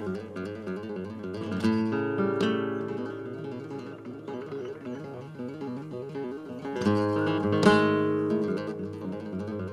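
Background music: acoustic guitar picking, with loud strummed chords about a second and a half in and again near seven seconds.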